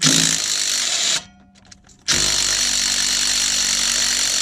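Power impact wrench run in two bursts on a stuck sway bar end link nut: a burst of about a second, a short pause, then a longer run of about two and a half seconds.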